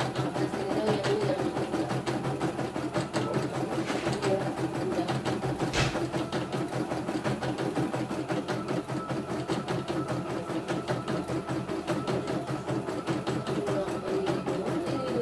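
CNY E900 computerised embroidery machine stitching out a design: a rapid, steady run of needle strokes over the hum of its motor, with one sharper click about six seconds in.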